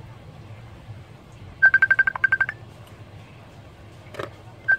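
A rapid string of about ten short, high electronic beeps at one pitch, lasting under a second, with the same string starting again about three seconds later. A single click falls between them.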